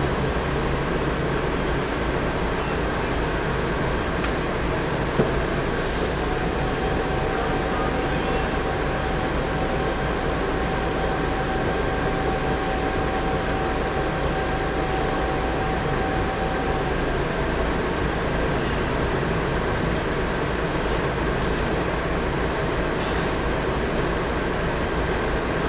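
Volvo B10M bus running along with a steady engine and road drone. A thin, steady turbocharger whistle sits on top of it from about six seconds in until about seventeen seconds, and there is a single sharp knock about five seconds in.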